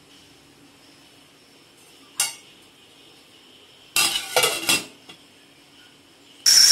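Stainless steel lid being set onto a steel pot of milk on a gas stove: a single clink about two seconds in, then a short clatter of metal on metal about four seconds in. A loud steady hiss with a high whistling tone cuts in right at the end.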